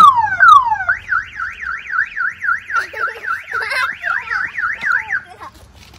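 Car alarm siren cycling through its tones. A falling whoop repeats about twice a second, then a fast up-and-down warble at about five cycles a second, which cuts off shortly before the end.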